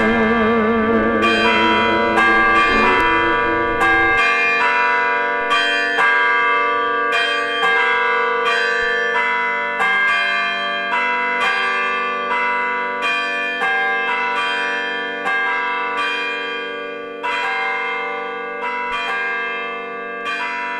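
Church bells ringing a steady run of strikes, about two a second, the tones hanging on and overlapping, slowly fading. In the first few seconds the held last note and accompaniment of a song fade out under them.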